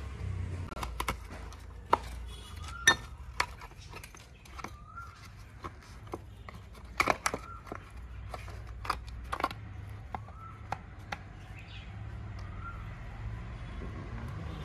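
Hand tools clinking and knocking against the metal parts of a brush cutter's small engine as it is taken apart: a string of sharp, irregular clicks and clanks over a low steady hum.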